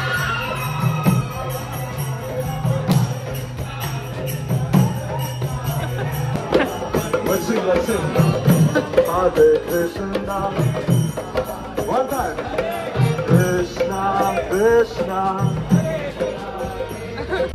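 Street devotional chanting: voices sing over a steady low drone, with two-headed barrel drums (mridangas) and jingling metal percussion keeping a steady rhythm. The chanting grows stronger from about six seconds in.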